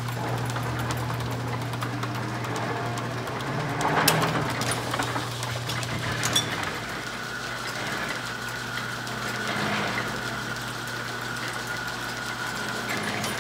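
Belt-driven early-1900s American Tool Works metal planer running, a steady low mechanical hum and clatter from its drive and gearing. There are two sharp knocks, about four and six seconds in, and a thin steady whine joins about halfway through.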